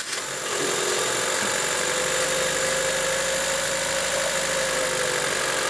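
2001 Honda Civic's 1.7-litre four-cylinder engine just after starting. It settles into a steady idle within the first half second and keeps running without stalling, now that the timing belt has been reset from one tooth advanced on the cam.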